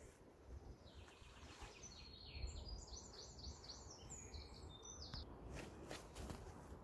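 A small songbird singing faintly: a quick run of short, high chirping notes that starts about a second in and lasts a few seconds, over a low rumble of wind. A few faint clicks near the end.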